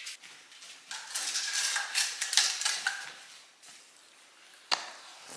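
Bernese mountain dog crunching and chewing a treat: a run of crisp crunches for about two and a half seconds, then a single sharp click near the end.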